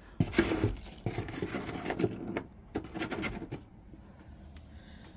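Small plastic nail-supply bottles and packaging being handled: a quick, irregular run of clicks, taps and rustles that stops after about three and a half seconds.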